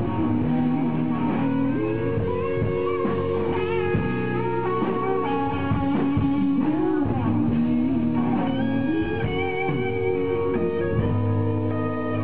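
Live band playing a country song, with electric guitar to the fore.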